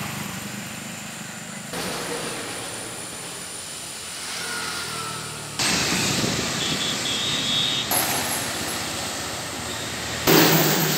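Highway traffic going by: motor scooters and trucks passing. The road noise jumps abruptly several times and is louder in the second half.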